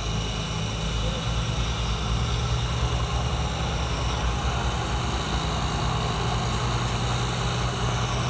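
Diesel engine of a 1998 Barko 160 log loader running steadily.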